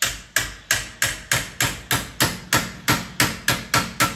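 Hammer striking a torch-heated, red-hot steel bar clamped on a steel table to bend it: a steady run of sharp metallic blows, about three a second, each with a short ring.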